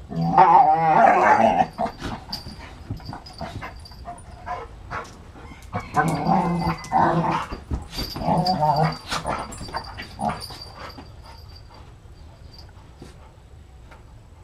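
Dogs play-growling and grumbling as they wrestle, in a few wavering bouts: one just after the start and others about six and eight seconds in, with soft scuffling between and a quieter stretch near the end.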